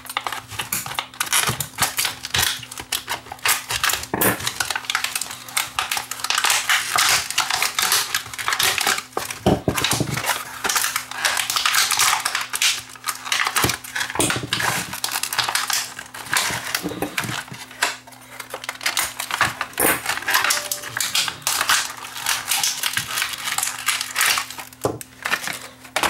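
Scissors snipping through a plastic blister pack and the stiff plastic crackling and crinkling as it is pulled apart, with plastic-handled screwdrivers clicking and clattering onto the workbench as they come out.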